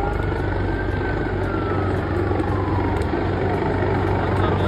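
Helicopter flying low overhead, its rotor chopping steadily, with a siren wailing slowly up and down behind it.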